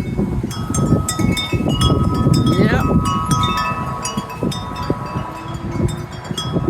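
Wind chimes jangling in a gust of wind: many quick, high strikes, with a few lower chime tones that ring on steadily from about half a second in. Wind rushes on the microphone, strongest in the first half and easing off later.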